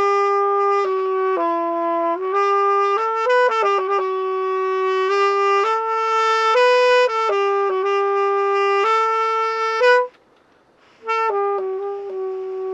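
Saxophone playing a slow melody of long held notes, broken once by a pause of about a second near the end before it resumes.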